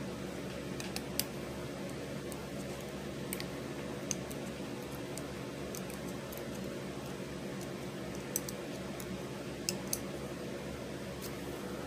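A handful of light, sharp clicks from a hook and rubber loom bands against the pegs of a clear plastic Monstertail loom as the bands are looped up and over, a few seconds apart, over a steady low background hum.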